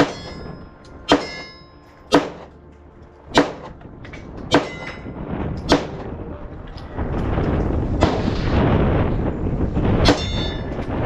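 Glock 19 9mm pistol fired in slow succession, about one shot a second for six shots, then one more after a pause, with wind buffeting the microphone over the later shots.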